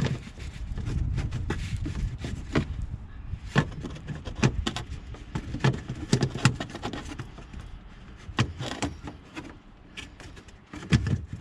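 A series of sharp plastic clicks and knocks as a headlight cover and surrounding parts are handled and pushed back into place after a bulb change. There is low wind rumble on the microphone over the first few seconds.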